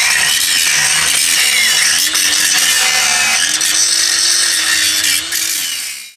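Cordless angle grinder grinding steel, its motor whine wavering up and down as the disc is pressed into the metal and eased off.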